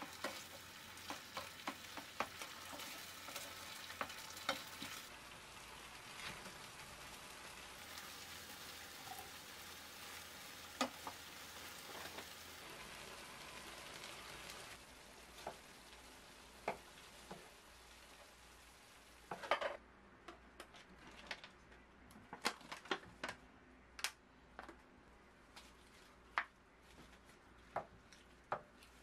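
Curry sauce sizzling in a frying pan while a wooden spoon stirs it, with scattered knocks of the spoon against the pan. The sizzle fades after about fifteen seconds, and the later part is mostly the spoon knocking and scraping.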